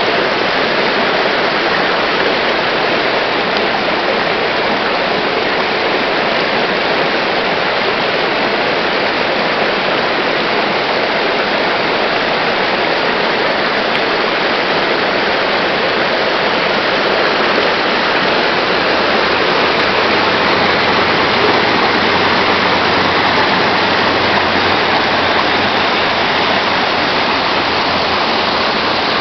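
Steady rushing water of a stream or creek, an even rush that does not change.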